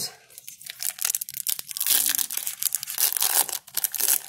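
Foil trading-card pack wrapper being ripped open by hand, crinkling and tearing in a dense crackle of sharp snaps. It grows louder about halfway through.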